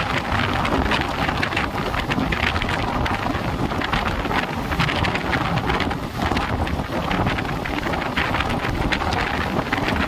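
Indian Railways passenger train running at speed: steady wind rush over the microphone with the rumble and irregular clatter of the coach's wheels on the rails.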